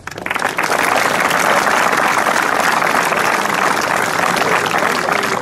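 Audience applauding, starting at once and keeping up a steady level.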